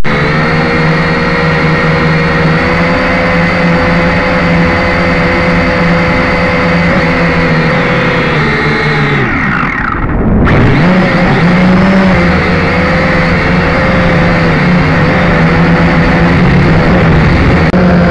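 Syma X5C toy quadcopter's four motors and propellers whining, heard very close through the drone's onboard camera. The pitch holds steady at first. About nine seconds in it falls sharply and briefly nearly dies away, then climbs back and wavers as the throttle changes.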